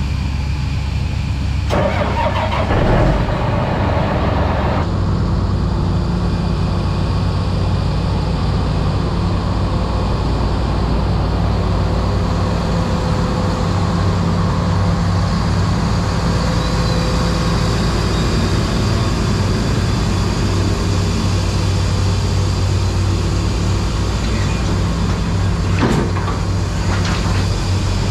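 Diesel tractor engines on a cold start after a frosty night. One engine is already running when another catches about two seconds in, with a rough, noisy few seconds. Both then settle into a steady idle.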